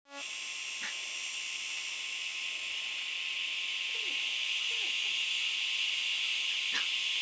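A steady high-pitched hiss or buzz, with a few faint short falling squeaks and a couple of brief clicks.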